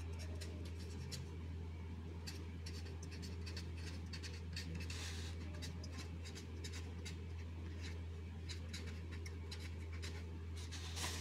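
A pen scratching on paper as words are written by hand: a string of short, irregular strokes. Under it runs a steady low hum.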